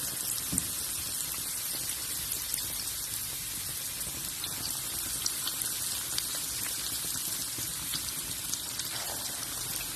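Battered cauliflower florets deep-frying in hot oil: a steady sizzling hiss with small scattered crackles.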